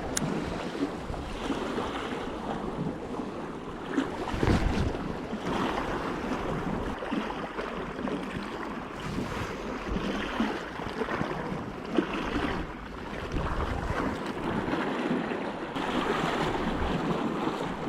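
Sea waves washing and surging among breakwater tetrapods, with wind buffeting the microphone. The wind gusts hardest about four seconds in, and there is a short sharp tick about twelve seconds in.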